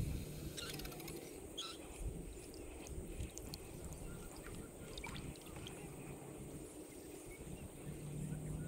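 Kayak moving slowly over calm water: a low, quiet rumble of wind and water around the hull, with a few faint high chirps about a second in.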